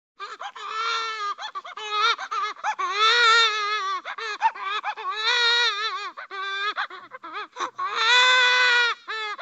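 Cartoon baby crying sound effect: high-pitched wavering wails, each held about a second, broken by short choppy sobs. It starts just after a silence, with the loudest wails a third of the way in and near the end.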